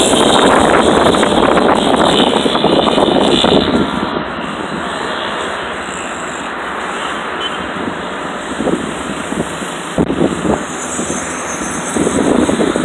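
Wind gusting against the microphone as a loud, rumbling rush. It is strongest for the first few seconds, eases, then picks up again near the end.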